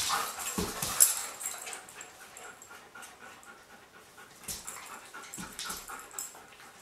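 Two dogs playing tug-of-war with a rope toy: dog vocal noises and scuffling, with sharp clicks on the hardwood floor, busiest in the first second and quieter after.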